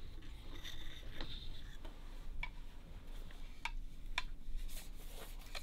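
Scattered light clicks and taps as a heated solid bamboo rod blank is knocked against a wooden straightening tool and the firebrick edge of the heater, over a low steady hum.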